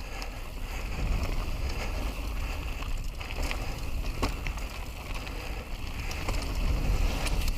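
Wind buffeting the microphone as a steady low rumble, with scattered light clicks and ticks over a hiss.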